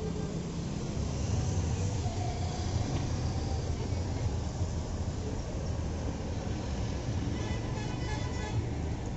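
Air India Airbus A319's jet engines at takeoff thrust during the takeoff roll, heard from a distance as a steady low rumble.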